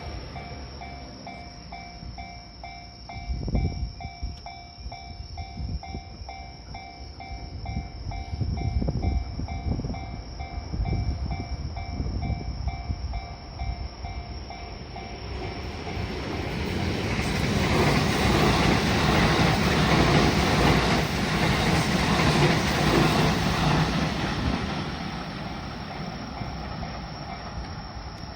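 A Japanese level-crossing alarm rings with a steady repeating two-tone clang, about two strikes a second, while a train's wheels clack over the rail joints. The alarm stops about halfway through. A train's passing rumble then swells to its loudest and fades toward the end.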